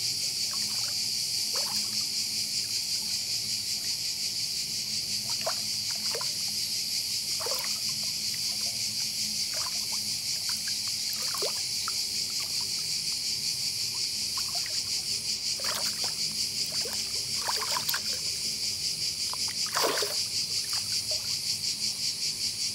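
Steady, high-pitched insect chorus with a fast pulsing, and scattered short chirps beneath it.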